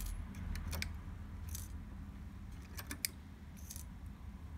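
Scattered light metallic clicks and ticks as thin-nose pliers grip and pull the old needles out of an embroidery machine's needle bars and the loose needles are handled, over a low steady hum.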